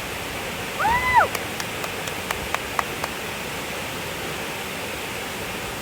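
Steady rush of a waterfall. A short vocal sound about a second in, then a handful of sharp clicks.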